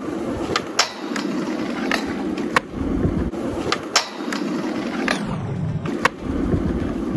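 Skateboard wheels rolling over rough asphalt with a steady rumble, broken by several sharp clacks of the board popping and landing, and the board grinding along a low metal rail.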